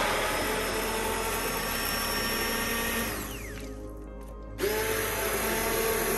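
Immersion blender running in a pot of leek and potato soup, puréeing it. About three seconds in it is switched off and its whine falls as the motor spins down, then it is switched back on a second and a half later.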